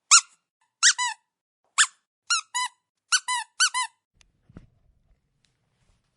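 Dog squeaker toy squeaking: about nine short, high squeaks over the first four seconds, several in quick pairs, each rising and falling in pitch. A faint low knock follows, then little sound.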